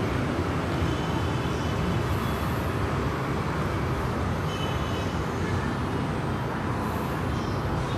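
Steady background hum and hiss, even throughout, with no distinct events.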